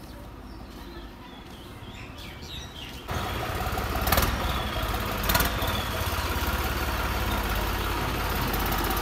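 Faint bird chirps, then about three seconds in a New Holland tractor's diesel engine starts up loud and steady as the tractor drives out. It has a straight exhaust pipe fitted in place of the original silencer. Two brief clacks come about a second apart.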